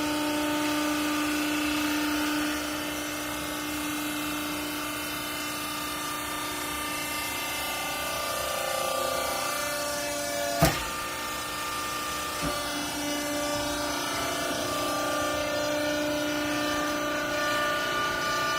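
Vertical downstroke baler's electric motor and hydraulic pump running with a steady whine, its pitch shifting a couple of times as the load on the press changes. A single sharp knock about ten and a half seconds in, and a lighter one two seconds later.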